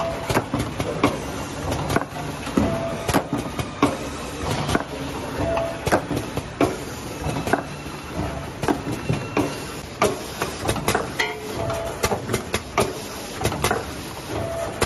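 GU10 LED bulb assembly line running: conveyor and pneumatic mechanisms clicking and clacking irregularly over a steady machine hum, with a short tone sounding every few seconds.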